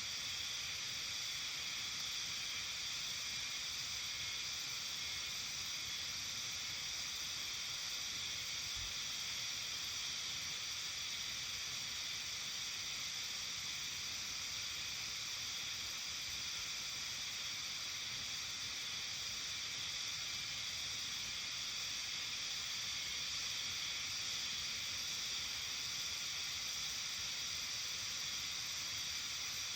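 Steady evening chorus of insects: a dense, even high-pitched hiss made of several constant pitches layered together, without a break.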